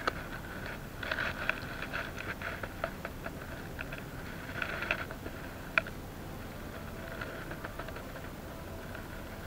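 Rustling and light clicking as a braided rope is pulled in and coiled by hand, with one sharp click a little over halfway through, over a low steady rumble.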